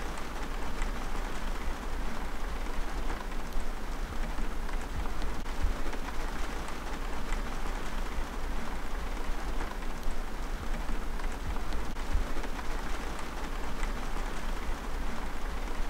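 Steady rain falling on a converted school bus, heard from inside, with scattered faint drop ticks.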